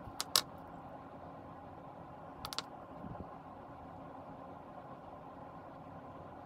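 Hard turned epoxy resin pen barrels clicking as they are set down on a workbench and handled: two sharp clicks near the start, a pair more about two and a half seconds in, and a soft knock just after. A steady background hum runs underneath.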